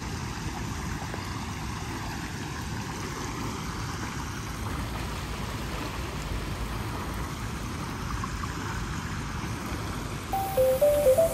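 Steady rushing and bubbling of water where a pond's underwater aerator wells up at the surface. Music with a plucked-sounding melody comes in about ten seconds in.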